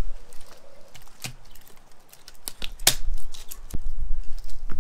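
Light clicks and taps of tools and small metal and plastic parts being handled while a tablet is taken apart, with one sharper click about three seconds in.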